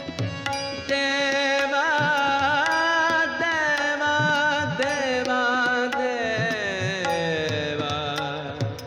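Indian devotional music: a sustained lead melody that wavers and bends, with a long falling glide about halfway through, over a steady drone and tabla strokes.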